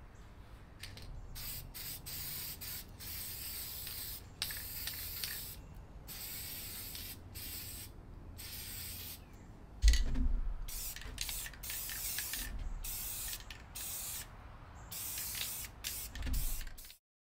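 Aerosol spray paint can spraying in repeated hissing bursts of varying length, a short pause between each. A sudden low thump about ten seconds in is the loudest sound, with a smaller one near the end, and the sound cuts off just before the end.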